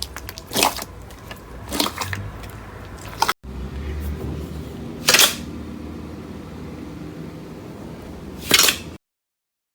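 Slime being squeezed and poked, a few short crackly squishes and pops spread over several seconds. The sound cuts off abruptly near the end.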